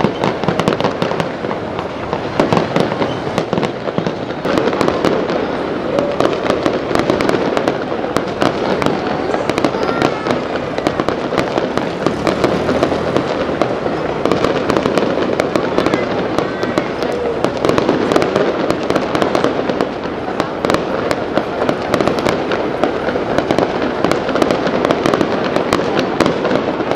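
Fireworks display: shells bursting one after another, rapid overlapping bangs and crackles with no break.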